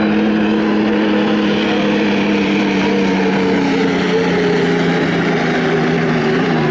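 The turbine engines of a field of unlimited hydroplanes race past together in a loud, steady whine that slowly drops in pitch, over a rush of spray noise.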